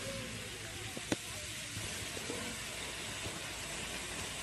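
Steady hiss of a water jet spraying upward and raining back down, with a single sharp click about a second in.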